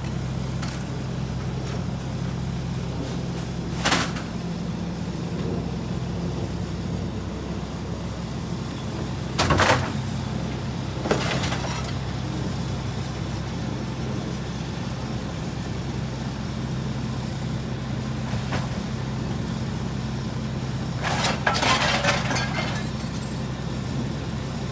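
Garbage truck's diesel engine idling steadily. Several times over it, bags and boxes are thrown into the rear-loader hopper and land with a sharp knock, with a longer rattling clatter near the end.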